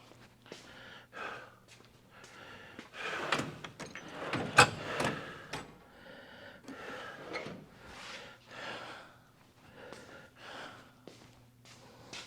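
Hand-tool work on oil pan bolts: scattered metal clicks, scrapes and handling sounds, with one sharp click about four and a half seconds in, over a faint steady hum.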